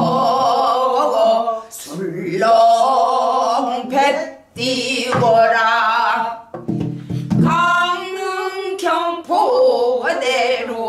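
A woman singing a pansori-style danga in long, wavering held notes that break and resume several times. She beats time with a few strokes of a stick on a buk barrel drum.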